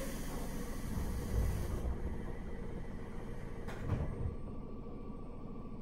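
Pneumatic sliding doors of a JR 103 series 1500 electric train closing, with a hiss of air that stops about two seconds in and dull thumps at about one and a half and four seconds, over the steady hum of the standing train.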